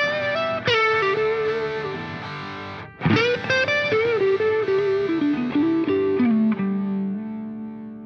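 Background music: a distorted electric guitar plays a lead melody with bent notes, breaks off briefly about three seconds in, then steps down to a long held low note that fades away near the end.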